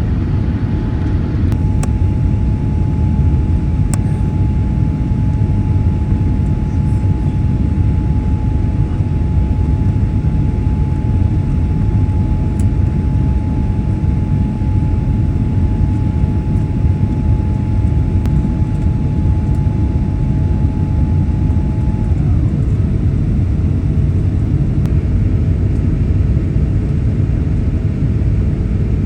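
Cabin noise aboard a Boeing 787-8 airliner: a loud, steady rumble with a steady whine over it. The whine's pitch drops about 22 seconds in.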